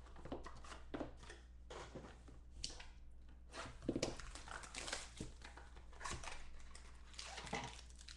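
Cardboard trading-card box being handled and pried open by hand: short, irregular scrapes, rustles and crinkles of cardboard, loudest about four seconds in, over a low steady hum.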